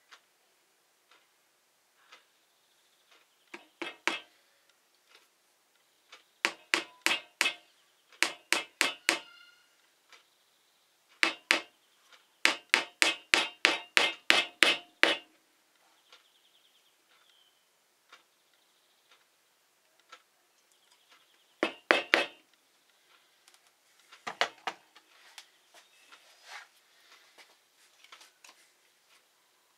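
Small hammer tapping small nails through round wooden discs into a pine board: several short bursts of quick strikes, the longest a run of about ten in the middle, with a few lighter taps near the end.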